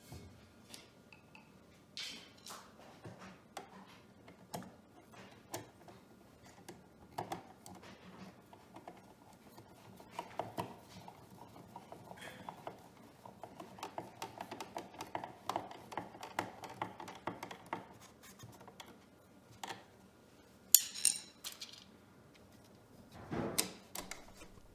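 Irregular light clicks, clinks and scraping of small metal and plastic hardware being handled as outlet spacers and mounting screws are fitted to an electrical outlet, with a couple of louder sharp clatters near the end.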